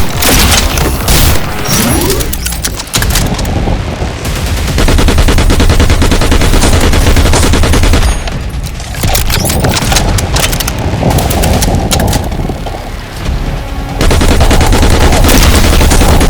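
Rapid automatic shooting in long sustained bursts, with a steady deep rumble underneath; the firing eases off briefly around a third and again near three quarters of the way through.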